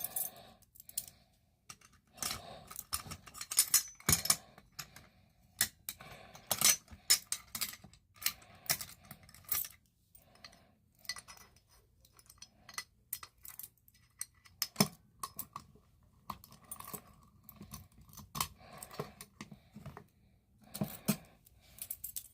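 A ring of keys jangling with a run of irregular sharp metallic clicks and rattles, as the FCI key is worked in an FCI pull station.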